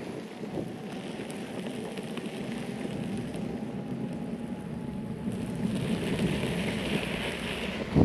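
Electric longboard's wheels rolling over a gravel trail: a steady, gritty rumble with a hiss above it that grows a little louder near the end.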